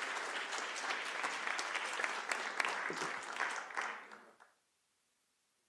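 Audience applauding, dying away about four and a half seconds in.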